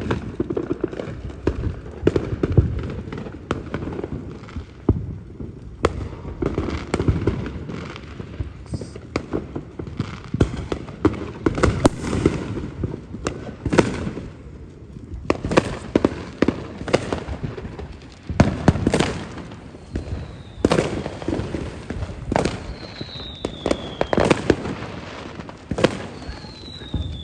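Fireworks display: repeated bangs and crackling pops in quick succession, with a few short falling whistles in the last third.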